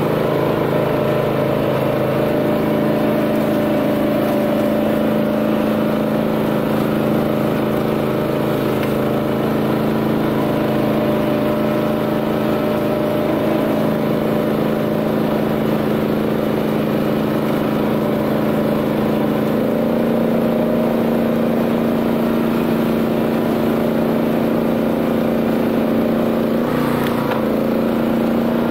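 The Honda GX390 single-cylinder engine of a BCS 740 two-wheel tractor runs steadily under load, driving a flail mower through grass. Its pitch steps up slightly about two-thirds of the way through.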